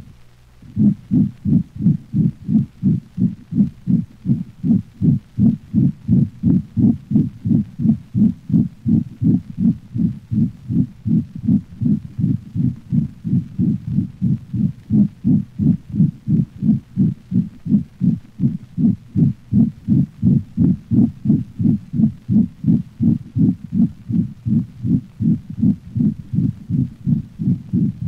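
Dog's heart recorded at the chest wall: the loud crescendo-decrescendo systolic murmur of pulmonic stenosis with every beat, about two beats a second, drowning out the other heart sounds.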